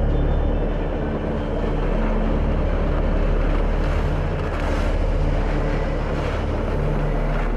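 Heavy vehicle engine running steadily, with a broad rushing noise over a strong low drone.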